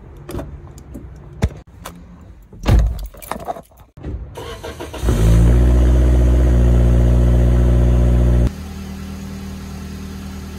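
Car door handle clicks and door clunks, then a hatchback car's engine starts about four and a half seconds in and runs loudly and steadily. At about eight and a half seconds it drops abruptly to a quieter steady running.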